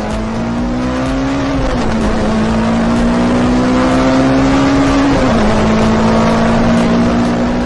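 Car engine accelerating through the gears: its pitch climbs, drops at a gear change about two seconds in and again about five seconds in, then holds steady.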